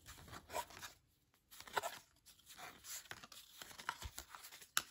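Baseball cards being thumbed through by hand, the card stock sliding and flicking against the stack in faint, irregular rustles and clicks, with a short pause about a second in and a sharper click near the end.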